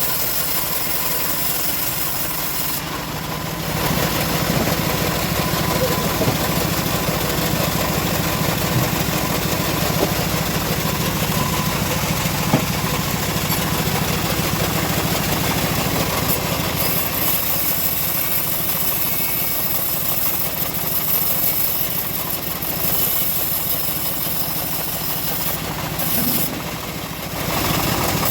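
Engine of a homemade bandsaw sawmill running steadily. It gets a little louder about four seconds in and dips briefly near the end.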